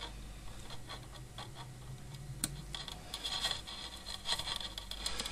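Wire cutters clicking and scraping as they snip at the strands of a steel bicycle brake cable, with one sharper snap about two and a half seconds in.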